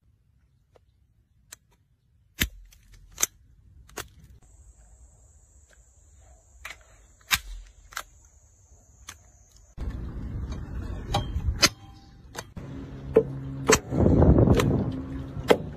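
Handheld spring-loaded nailer firing nails into concrete and wood with a series of sharp snaps, some a second or more apart. About ten seconds in, a steady outdoor background noise comes up, and a louder rush of noise comes near the end.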